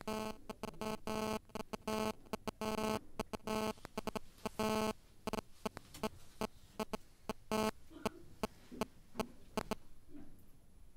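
An electronic buzzer sounds in irregular short and longer pulses of one low, buzzy pitch, then stops about eight seconds in.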